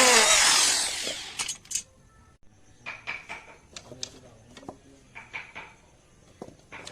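A power tool running, then winding down and stopping in the first second or so. It is followed by scattered light clicks and taps, like small wooden pieces being handled and set down.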